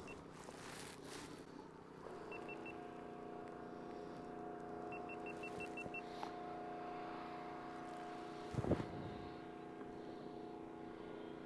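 A motor hums steadily at a fixed pitch, setting in about two seconds in. Two short runs of rapid high beeps sound over it, and a brief rustle comes a few seconds before the end.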